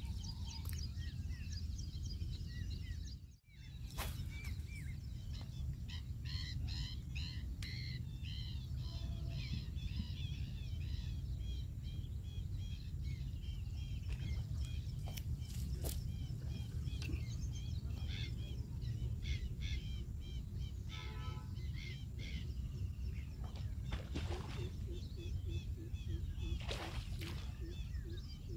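Many small birds chirping and calling over a steady low background rumble, with the sound briefly dropping out about three seconds in.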